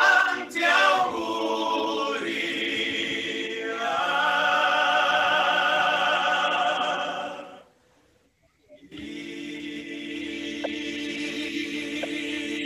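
Choral singing played back, many voices holding long wavering notes; it breaks off about seven and a half seconds in and, after a second's pause, held choir voices resume more steadily.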